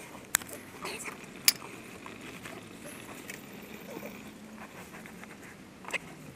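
A few sharp clicks and light knocks over a faint steady hiss, the loudest about a second and a half in, from hands handling a metal oil drain pan under a car.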